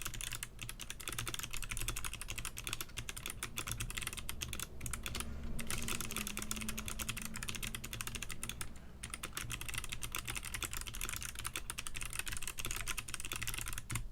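Continuous fast typing on a mechanical keyboard with Kailh Box Navy clicky switches, TaiHao ABS keycaps and a cheap plastic case: a dense stream of sharp clicks and clacks, pausing briefly twice.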